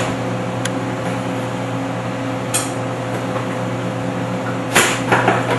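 Steady hum of kitchen machinery, with a few sharp clinks of kitchen utensils against dishes: one faint, one about two and a half seconds in, and a short cluster near the end.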